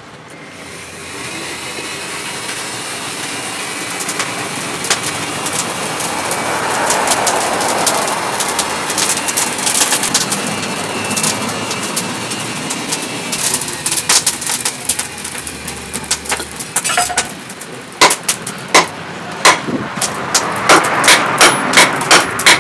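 A steady noise that builds over the first half, broken by scattered clicks and knocks. In the last few seconds a hand hammer strikes red-hot steel on an anvil in a quick, even rhythm of about two to three blows a second.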